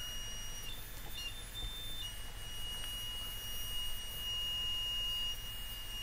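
Small electronic buzzer in a DIY laser-and-LDR security alarm sounding one steady high-pitched tone. Its pitch jumps higher for about a second near the start, then drops back and holds. The alarm is tripped: no laser light is falling on the light-dependent resistor, so the buzzer sounds and the LED lights.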